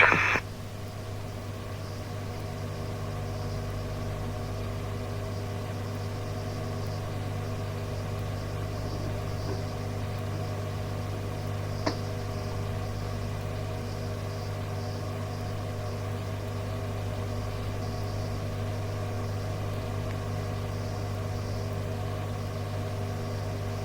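Steady electrical hum and faint hiss on an open radio channel between transmissions, with a single click about twelve seconds in.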